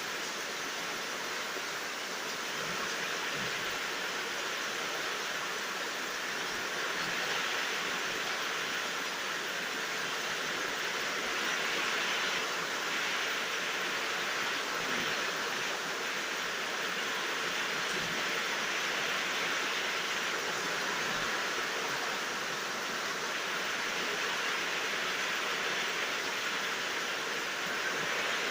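Steady rainfall, an even hiss with no thunder.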